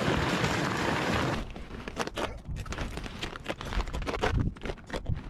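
A loaded sled dragged over snow-covered lake ice, with footsteps: a steady scraping hiss that stops about a second and a half in. Irregular crunching steps and knocks follow.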